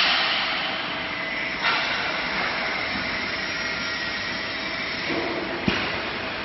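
Batch frying line machinery running with a steady mechanical hiss and hum, and a sharp metallic knock about one and a half seconds in and another near the end.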